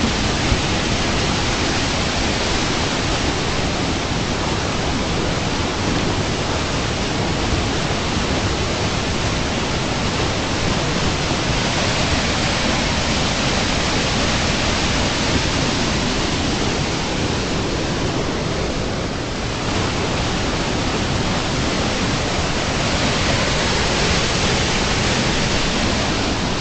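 Whitewater of a waterfall and rapids rushing steadily and loudly, heard from right at the water's surface, with a brief dip about two-thirds of the way through.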